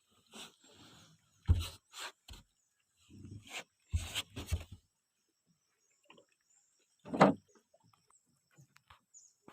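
A string of short knocks and bumps, about ten in the first five seconds, then one louder thump about seven seconds in.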